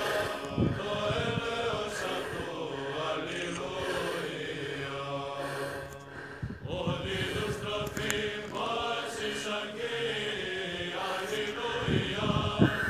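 Slow Orthodox church chant: a voice singing long held notes that glide from pitch to pitch, with a short break about halfway through.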